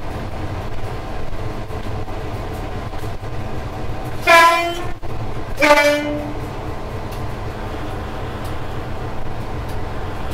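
Diesel locomotive's two-tone horn sounded twice about four to six seconds in: a short higher note, then a short lower one. Under it runs the steady rumble of the train running on the rails.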